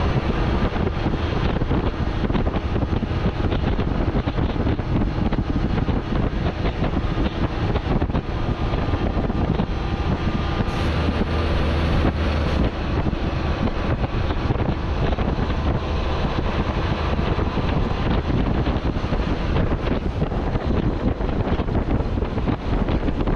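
Wind rushing over an outside-mounted microphone, with the diesel engine of a Hino semi-truck pulling a wood-chip trailer running steadily underneath along with road noise, at cruising speed.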